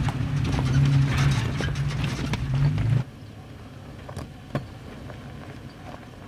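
Toyota Tacoma pickup engine running at low revs as it crawls over rocky ground, with crackling and clicking from the tyres and rocks underneath. It cuts off suddenly about three seconds in, leaving only a faint background with a couple of light clicks.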